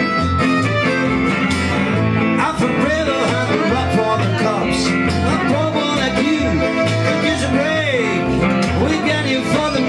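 Live trio playing an instrumental passage with a Roland accordion, acoustic guitar and electric guitar over a steady beat, with a lead line bending up and down in pitch from about two and a half seconds in.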